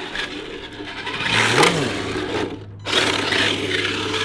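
RC drift car driving on a concrete floor: its motor whirring and the tyres scrubbing as it slides, rising and falling with the throttle, with a brief break near the middle.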